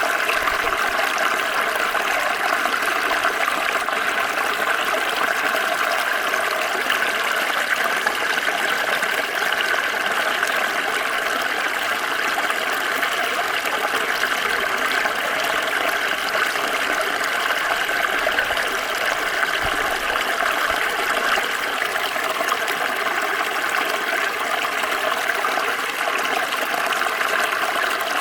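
Water of a small stream flowing and gurgling over rocks, a steady, even rush.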